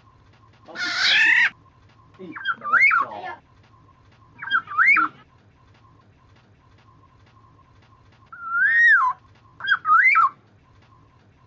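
Black-naped oriole calls on a bird-lure recording. One harsh call comes about a second in, followed by four short fluty whistled phrases that swoop up and down, over a faint steady hum.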